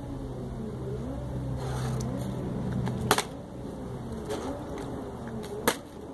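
Plastic water bottle flipped onto a concrete patio: a sharp clack about three seconds in, then another near the end as it lands upright. A low steady hum underlies the first half.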